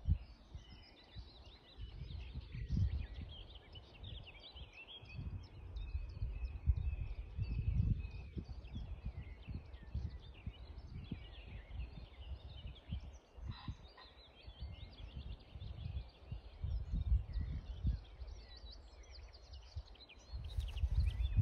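Many small birds singing and chirping continuously, with wind gusting over the microphone as a low rumble that swells and fades.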